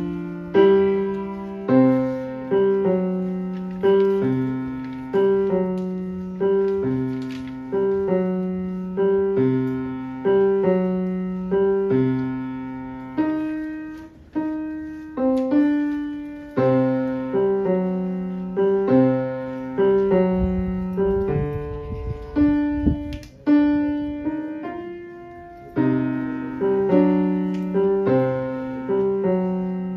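Grand piano played solo by a young child: notes and chords struck about once a second in a steady pattern, each left to ring and fade.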